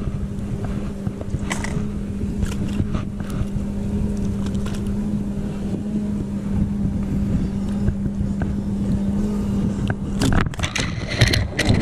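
Motorboat engine running at a steady pitch, over low wind rumble on the microphone. The hum stops about ten seconds in, and a run of clicks and handling noise follows.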